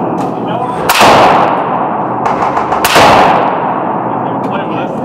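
Two rifle shots about two seconds apart, each a sharp crack followed by a long echoing decay.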